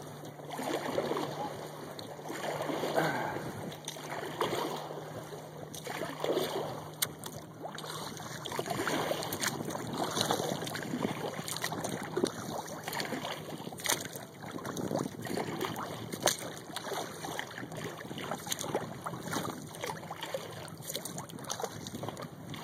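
Kayak paddle strokes: water swishing and splashing in surges every second or two for the first several seconds, then scattered drips and light clicks over a steady water hiss.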